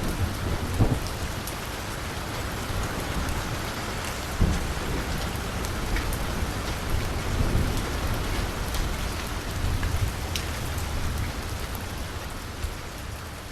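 Steady rain falling on a street, with individual drops ticking sharply here and there. A low rumble swells under the rain at times, strongest about a second in and again about four and a half seconds in.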